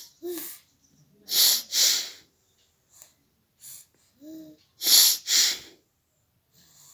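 A child sneezing again and again, the sharp sneezes coming mostly in pairs about half a second apart, with short voiced catches of breath before some of them.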